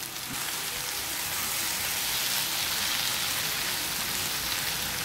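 Diced tomatoes sizzling steadily as they hit a hot frying pan of sautéing onion and bell pepper and are stirred in with a spatula.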